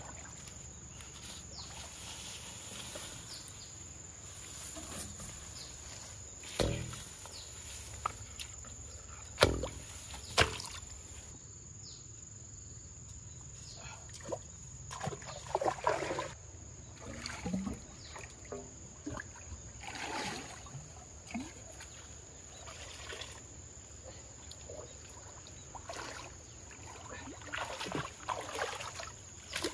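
Muddy water sloshing and splashing as someone wades and grabs in a shallow puddle, with a few sharp knocks between about seven and eleven seconds in.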